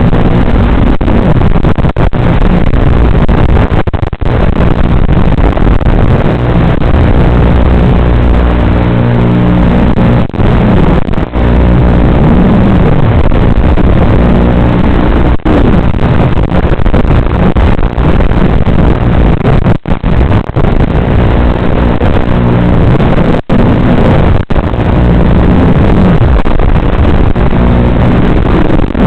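FPV racing quadcopter's T-Motor F60 1950kv motors and 5-inch props, a loud, distorted buzz whose pitch rises and falls with throttle, cutting out briefly several times.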